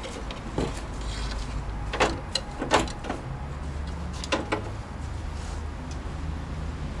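Side window glass of a VAZ-2101 door being lifted out of the door frame: a few scattered sharp clicks and knocks as the glass pane scrapes and knocks against the door's metal frame, over a low steady hum.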